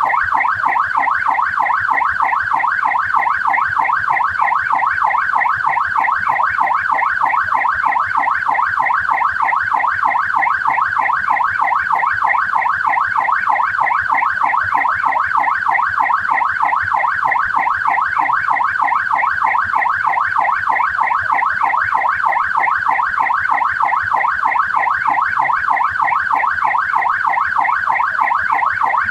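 Australian police car siren in a fast yelp, its pitch sweeping rapidly up and down several times a second without a break.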